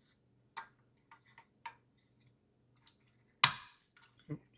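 Scattered small clicks and taps of parts being handled while an M.2 NVMe SSD is fitted into a drive dock, with one louder knock about three and a half seconds in.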